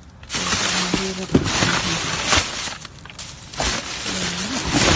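Plastic bags and cardboard boxes being rustled and shifted by hand while rummaging through a dumpster: dense crinkling and crackling of plastic, easing briefly about three seconds in.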